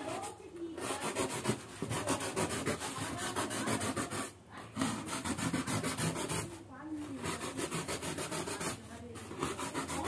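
A small blade cutting through a thermocol (expanded polystyrene) sheet, a rapid run of scratchy, rasping strokes broken by a few short pauses.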